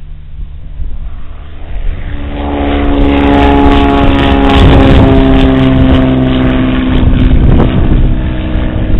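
Propeller airplane passing close by: its engine note swells up about two seconds in, runs loud for several seconds and drops slightly in pitch as it goes past, over wind rumble.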